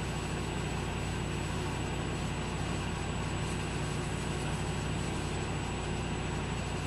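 Steady machine hum with an even hiss, from equipment running in the room.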